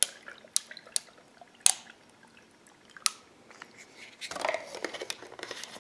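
Orange juice poured from a jug over ice cubes in a tall glass: a few sharp clicks and cracks of the ice, then a louder rough, splashing stretch from about four seconds in.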